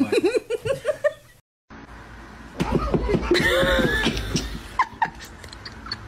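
A person laughing in quick repeated pulses, cut off abruptly about a second and a half in; after a brief silence, more laughter follows, and there are two short high-pitched sounds near the end.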